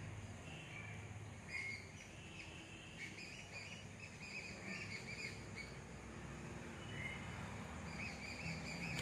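Small birds chirping: many short, repeated chirps that grow busier near the end, over a faint steady background hum.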